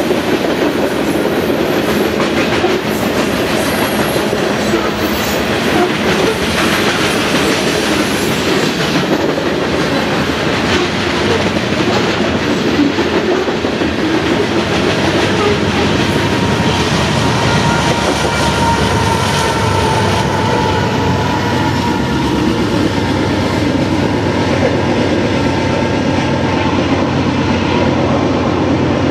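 Freight train of covered hopper cars rolling past at speed, a steady rumble of steel wheels on rail with repeated clickety-clack from the wheels crossing rail joints.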